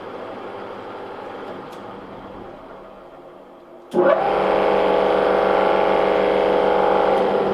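Pullmax P13 sheet-metal machine's three-phase motor: a fading machine hum, then a click about four seconds in as it is switched on, spinning up quickly to a loud, steady run. It has just been rewired with two phases swapped to turn it counterclockwise.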